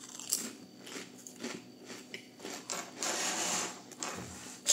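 A man biting into and chewing a tramezzino sandwich close to the microphone, with many small mouth clicks and a longer rustling hiss about three seconds in.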